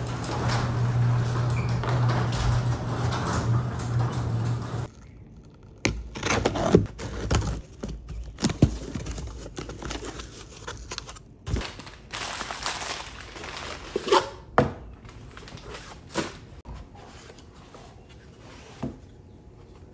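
A steady low drone that cuts off about five seconds in, then a cardboard box being handled and opened by hand on a wooden tabletop: scattered knocks, thunks, scrapes and paper-like rustles of the flaps.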